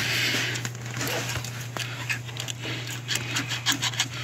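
Braided fuel hose being worked by hand over a barbed fitting, with rubbing and scattered small clicks from the hose and a plastic clip, and a short breathy rush near the start. A steady low hum runs underneath.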